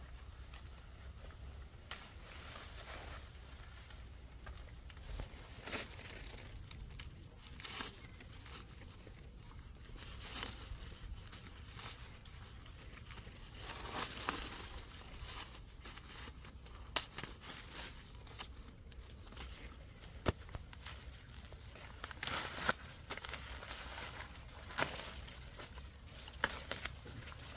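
Irregular rustling and crackling with scattered sharp snaps, like footsteps and handling of dry plant material. A steady high insect-like whine runs underneath.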